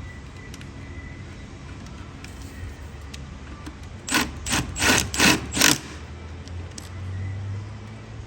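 Ratchet wrench run down on a 10 mm bolt in the engine bay: five quick rattling strokes about three a second, about four seconds in.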